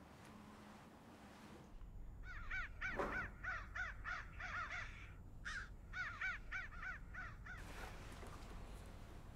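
Crow cawing in two quick series of harsh, repeated calls, about three or four a second, starting about two seconds in and stopping near the end. A single knock sounds during the first series.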